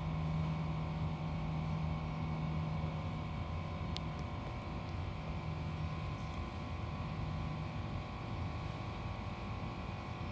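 A steady mechanical hum made of several held tones, with one sharp click about four seconds in.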